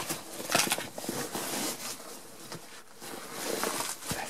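Crunching and shuffling in dry, very cold snow, with irregular scrapes and light knocks, as someone moves around a snow-covered wooden cellar hatch.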